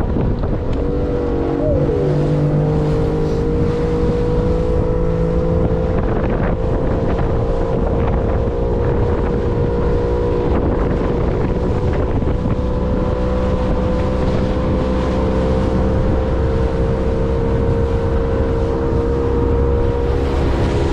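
Boat's outboard motor running at a steady speed under way, holding one even pitch, with wind buffeting the microphone.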